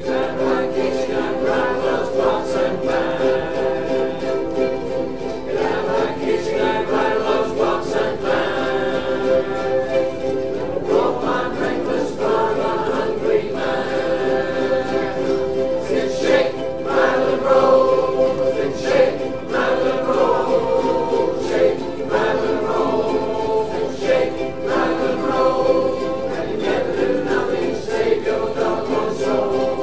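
A large ukulele ensemble strumming a song together, with the group singing along.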